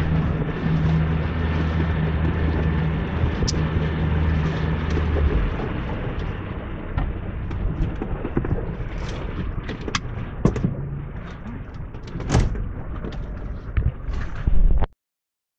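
100 hp Yamaha outboard running with the boat underway, over the rush of wind and water. The engine's steady hum changes about five seconds in, followed by scattered sharp knocks, and the sound cuts off abruptly near the end.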